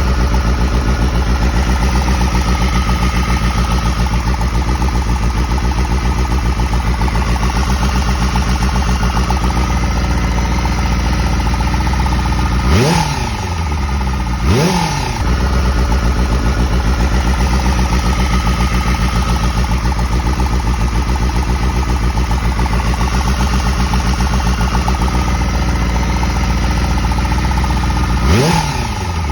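Honda Hornet 250's four-cylinder engine idling with an abnormal noise, blipped up in revs and dropping back three times: twice close together about halfway through and once near the end.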